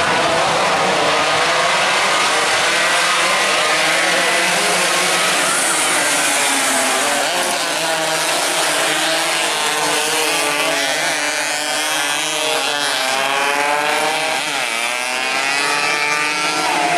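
Several two-stroke 116–125 cc underbone racing motorcycles at high revs. Their engine pitches rise and fall and cross one another as the bikes race by.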